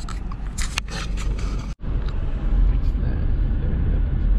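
Steady low rumble of a Subaru car's road and engine noise heard from inside the cabin while driving, with a few clicks and rustles in the first couple of seconds. The sound drops out for an instant a little under two seconds in, then the rumble comes back louder.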